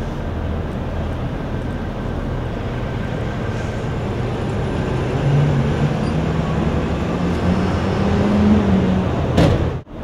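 City street traffic noise, steady, with a vehicle engine running whose pitch climbs a little in the second half. A sharp knock near the end, then the sound drops out briefly.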